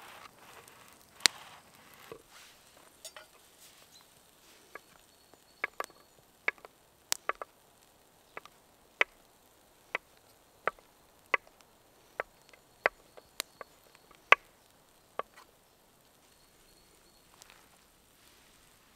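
Kitchen knife slicing a baguette, then cutting a block of cheddar on a wooden cutting board. From about six seconds in to about fifteen seconds in comes a run of sharp knocks, roughly one every half second or so, as the blade comes down through the cheese onto the board.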